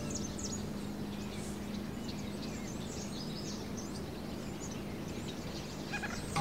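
Outdoor ambience: a steady background hiss with scattered small-bird chirps, busier in the first couple of seconds and then sparse.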